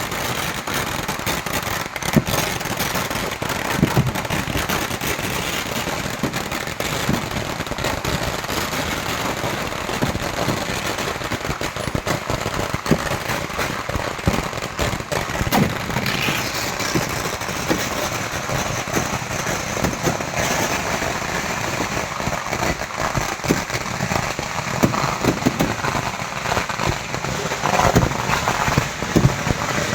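Firecrackers going off in a dense, continuous barrage: rapid crackling bangs with scattered louder reports.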